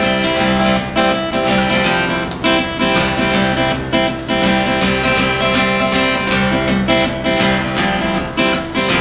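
Acoustic guitar being strummed live, a steady rhythm of chords with a stroke about every second.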